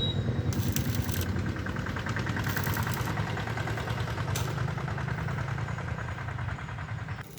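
An engine running steadily, with a fast even pulse.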